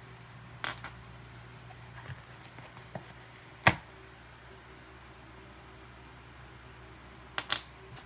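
Small plastic wireless earbuds and their cardboard box handled on a wooden table: a few sharp clicks and taps, the loudest about three and a half seconds in and a quick pair near the end, over a faint steady low hum.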